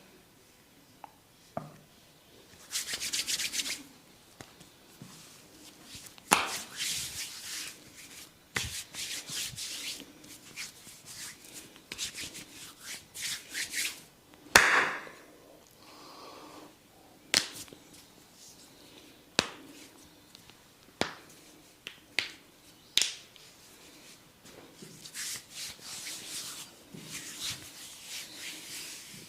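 Hands rubbing and massaging skin in bursts of a second or two. Several single sharp clicks come in the middle, the loudest about halfway through.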